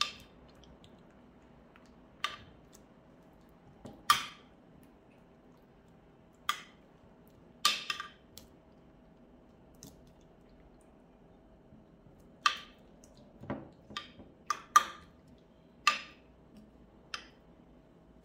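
Metal spoon clinking and scraping against a ceramic baking dish while spreading thick white sauce over diced potatoes: about a dozen sharp, irregular clinks, closer together in the second half.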